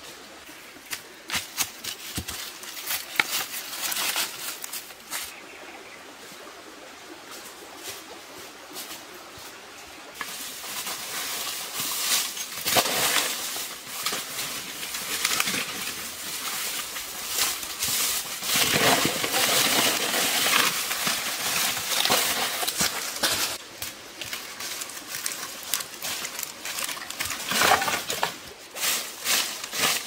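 Dry leaf litter and twigs crackling and rustling under feet and hands, with irregular snaps and knocks. Sparse at first, then dense and louder from about a third of the way in, easing off briefly before picking up again near the end.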